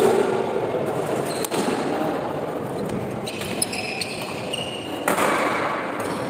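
Badminton rally: a few sharp hits of racket on shuttlecock, with short high squeaks of court shoes near the middle, over the murmur of a reverberant sports hall.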